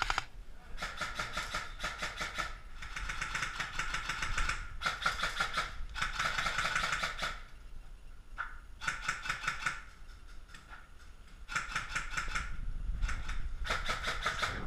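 Airsoft electric rifles firing in repeated full-auto bursts: strings of rapid, evenly spaced clicks, each lasting about one to two and a half seconds, with short pauses between.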